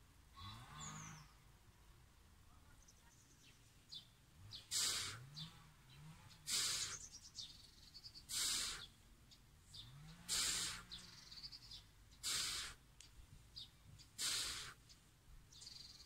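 A man's forceful exhalations while doing push-ups, one hard breath about every two seconds from about five seconds in. Faint bird chirps between the breaths.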